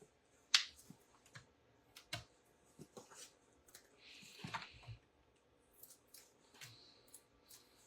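Faint clicks and taps of paper and cardstock being handled on a craft table, with a short papery rustle about four seconds in.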